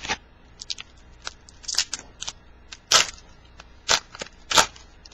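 Foil wrapper of a 2010 Bowman baseball card pack crinkling and crackling in the hands as the pack is opened. There is a run of sharp crackles, with the loudest three about three, four and four and a half seconds in.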